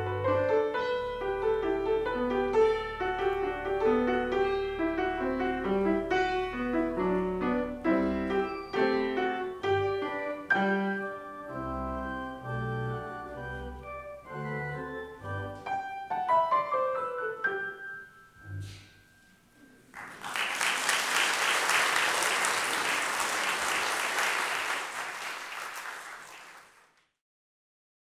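Piano music: a live piano piece that climbs in a quick rising run to a final chord about 17 seconds in and rings away. Then audience applause for about six seconds, which cuts off suddenly.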